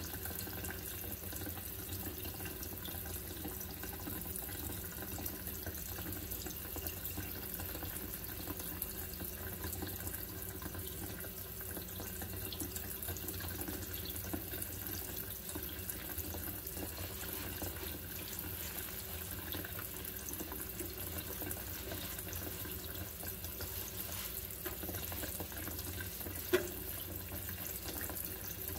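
Kitchen faucet running a fine spray into an empty stainless steel sink, the water splashing steadily on the steel beside the drain. A single small knock sounds near the end.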